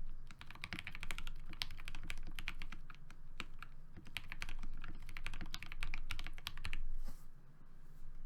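Typing on a FEKER JJK84 mechanical keyboard with hand-lubed Momoka Frog switches, PBT keycaps and PE foam switch pads: a quick run of keystrokes that stops about seven seconds in.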